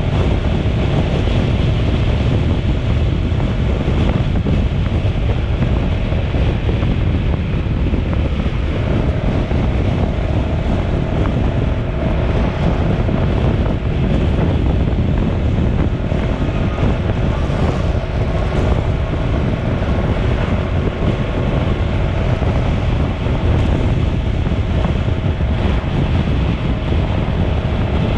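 Wind buffeting the microphone: a loud, steady rumble with a faint hum underneath.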